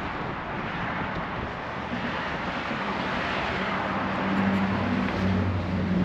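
Road traffic passing: tyre and engine noise swells to a peak midway and eases off, with a steady low engine hum coming in about halfway through.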